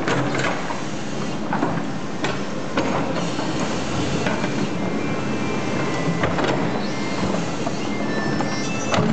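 Doosan crawler excavator's diesel engine running steadily under load, with irregular clanks and knocks from the steel bucket and its linkage as it digs and scrapes into sandy soil.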